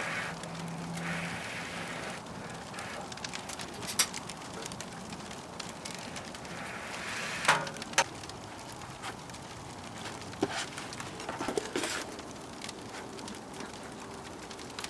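Wood fire crackling in a wood-burning stove: a steady hiss with scattered small crackles and a few sharp pops.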